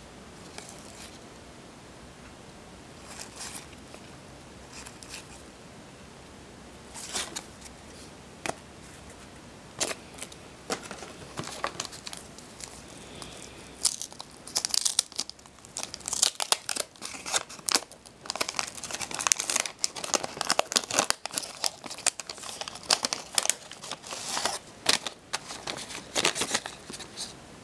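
Wax-paper trading card pack wrappers being torn open and crinkled by hand: sparse rustles and clicks at first, then dense crinkling and tearing through the second half.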